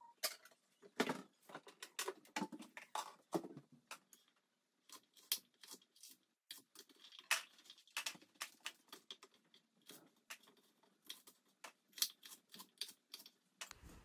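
Irregular light knocks and taps of food prep: a kitchen knife chopping carrots on a cutting board, with the pieces handled and gathered into a bowl, some taps coming in quick runs.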